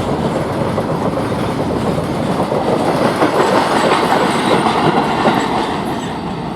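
Freight train rolling past, its wagon wheels clattering over the rails in a steady rumble that eases slightly near the end.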